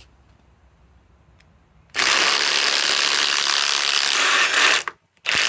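Cordless impact wrench hammering on a 5-inch lag screw, starting suddenly about two seconds in, stopping briefly near the end and starting again.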